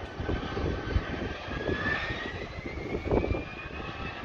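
Airbus A320-214's CFM56 jet engines whining, the pitch rising steadily as the engines spool up, over a gusty low rumble of wind on the microphone.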